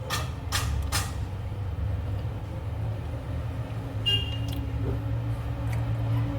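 Steady low rumble with a faint steady hum, a few sharp clicks in the first second and a brief high squeak about four seconds in.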